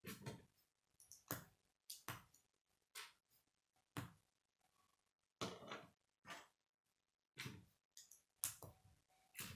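Plastic K'nex pieces clicking as rods are snapped into a connector hub and handled: a dozen or so sharp snaps at irregular intervals, about one a second, the loudest near the end.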